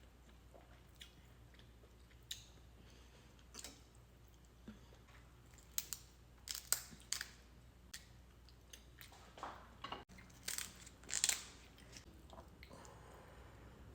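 Close-miked eating of king crab: chewing and mouth sounds with scattered sharp clicks and crackles, bunched in two clusters, one just past the middle and one about three quarters through.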